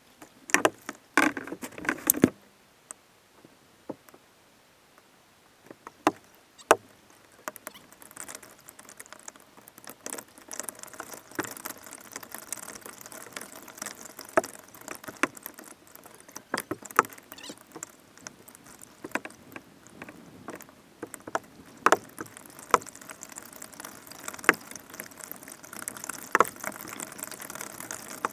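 Kayak out on the water: water sloshing and splashing, with sharp knocks now and then and a cluster of knocks near the start.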